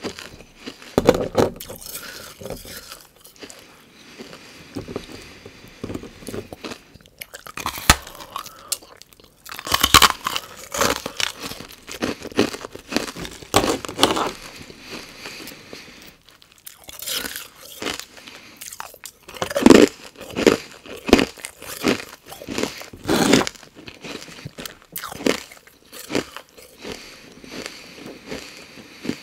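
Close-miked crunching of carbonated ice, bitten and chewed in clusters of sharp crunches with short pauses between.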